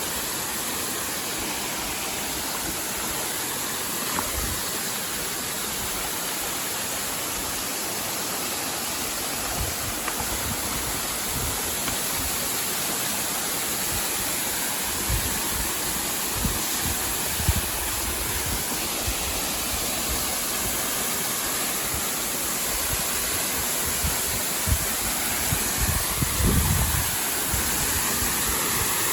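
Steady rush of a waterfall's falling water. Occasional low thumps come in from about ten seconds in, most often near the end.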